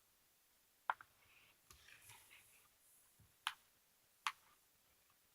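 Three short, sharp clicks spread over a few seconds, with faint soft rustling between the first two, against near silence.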